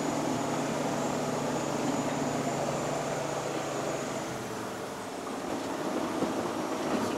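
A small propeller airliner's engines and propellers heard from inside the cabin, with a steady low drone over a broad rushing noise. The drone drops away about four seconds in, leaving the rush a little quieter.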